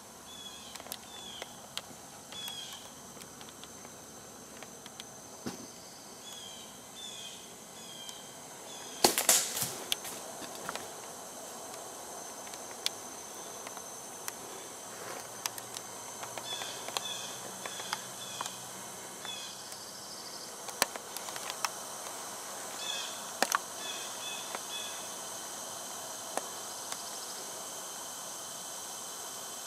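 Quiet woodland ambience over a steady hiss: short high chirps in little runs of three or four, several times over, with scattered light ticks and rustles in leaf litter. A loud crackling rustle about nine seconds in is the loudest sound.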